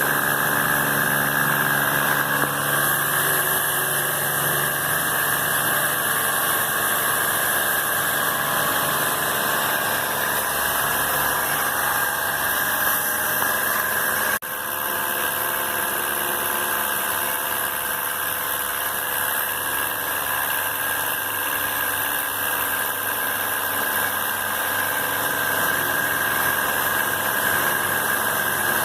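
A small machine's motor running steadily with a high hiss, briefly cut off about halfway through.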